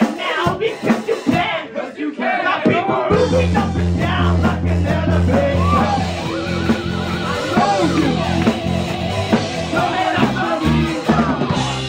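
Rock music with singing. A steady bass line comes in about three seconds in.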